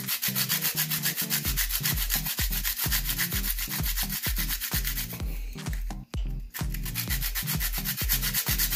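A whole nutmeg being grated on a handheld metal rasp grater: a dry scraping in rapid strokes, with a couple of brief breaks a little past the middle. A low steady beat of background music runs underneath.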